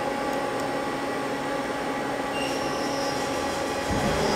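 Mazak CNC lathe running after cycle start: a steady machine hum with a high whine coming in about halfway through. Near the end it grows louder as the machine gets into its cycle.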